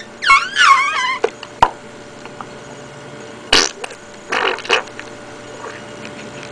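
A small animal's high, squeaky calls: a quick run of falling chirps in the first second. They are followed by a couple of sharp clicks and short hissy bursts about three and a half and four and a half seconds in.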